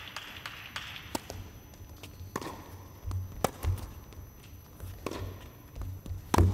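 Tennis ball being struck by rackets and bouncing during a rally on an indoor court: a few separate sharp pops about a second or more apart, the loudest near the end.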